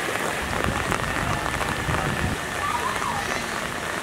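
Steady rain falling on the surface of standing floodwater: an even, dense hiss of countless small drop impacts.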